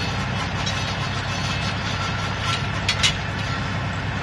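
LS XR3140 compact tractor's diesel engine running steadily, driving a PTO post hole auger as it is lifted out of the hole to clear loose dirt. A couple of short knocks about three seconds in.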